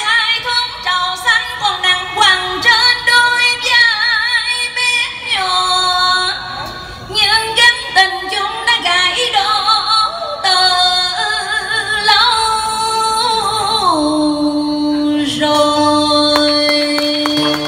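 A woman singing ca cổ, Vietnamese traditional cải lương singing, into a microphone, with long, wavering, ornamented held notes. A steady low note is held under her voice in the last few seconds.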